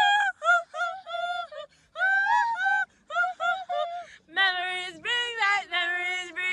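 Music with a high sung vocal line in short phrases. A lower second part comes in about two-thirds of the way through.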